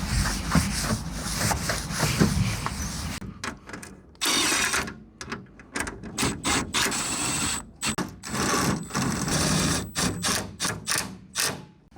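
A power drill running in several short bursts of about a second each, with short pauses between them.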